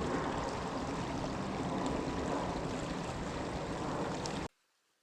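Creek water rushing, a steady noise that cuts off suddenly near the end.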